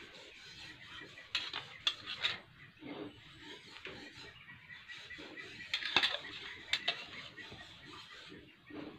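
Metal spoon clinking and scraping against a ceramic bowl while a cream mixture is spooned out: a few short, sharp clinks, the loudest about six seconds in.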